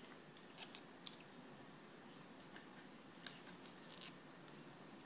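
Near silence broken by a few faint, sharp clicks and taps, as of a phone and its packaging being handled.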